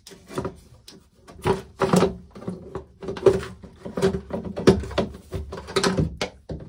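Irregular knocks, clicks and rattles of hard plastic being handled and pried, as the lid of a macerator pump tank is worked loose, over a faint steady hum.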